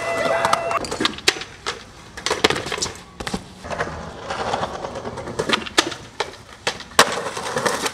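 Skateboard on concrete: wheels rolling with a run of sharp clacks and impacts from the board being popped and landed, the loudest crack about seven seconds in.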